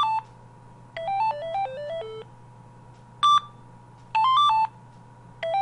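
Gigaset cordless phone playing one of its built-in ringtones, a melody of short electronic beeping notes. A quick rising figure of three notes is followed by a longer run stepping down in pitch. After a pause comes a single beep, then the rising figure again, and the descending run starts once more near the end.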